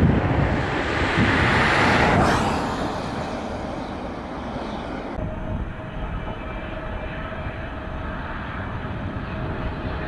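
Jet engines of an arriving Airbus A330-200 airliner, a loud even rush that fades after about two seconds. About five seconds in the sound changes abruptly to the quieter, steadier engine sound of an arriving Boeing 777-300.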